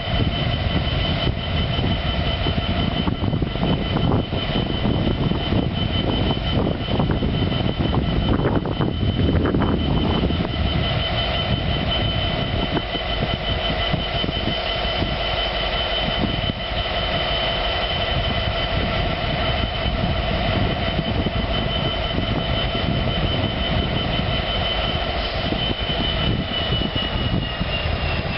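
Class 66 diesel locomotive's EMD two-stroke V12 running, a steady deep rumble under a high turbocharger whine. Near the end the whine starts to fall in pitch.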